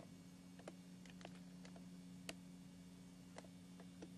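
Near silence: room tone with a steady low hum and a few faint, irregular clicks, one slightly louder a little past two seconds in.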